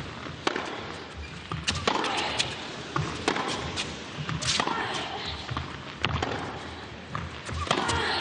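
Tennis rally on an indoor hard court: sharp racket strikes and ball bounces about once a second, over a low murmur from the crowd in the hall.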